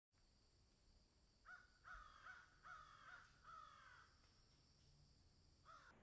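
Crows cawing: a quick run of about six harsh caws, the last one drawn out, then a single caw near the end, over a faint steady hiss.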